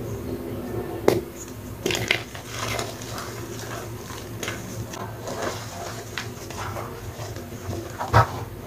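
Hands squeezing and crumbling wet hydrophobic chalk in a bowl of water: soft squishing and crumbling, with a few sharp clicks and knocks, the loudest about a second in and again near the end.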